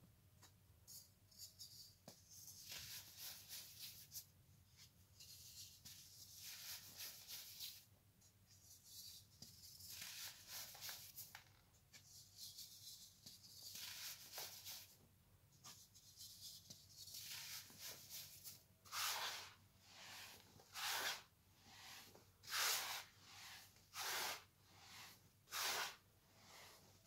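Baking soda being crushed by hand: soft, powdery crunching and crumbling as chunks break apart between the fingers. In the last third, squeezes of the loose powder pile give louder crunches at about one a second.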